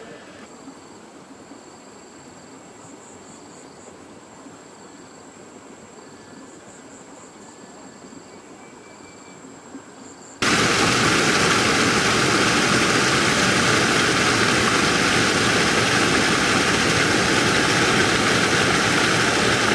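Faint steady background with faint high-pitched chirping pulses, then about halfway a loud, even rushing noise starts abruptly and holds steady.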